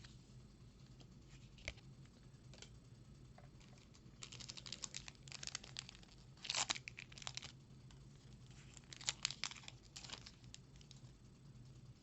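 A booster pack's foil wrapper crinkling and tearing open, in two spells of sharp crackly rustling, the second a couple of seconds after the first.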